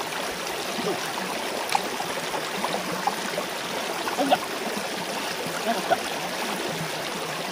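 Shallow mountain stream running over mossy rocks, a steady rush of water with a few brief gurgles and splashes.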